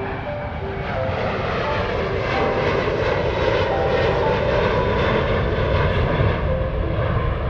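Jet airliner passing low overhead, its engine noise swelling about a second in and staying loud, under soft background music.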